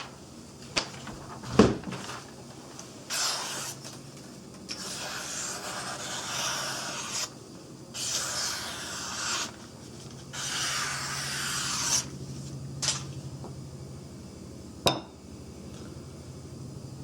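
A knife blade drawn across a strop in four long, slow rubbing strokes, a soft hiss on each pass. A few sharp knocks come from the knife being set down or handled, the loudest about a second and a half in and another near the end.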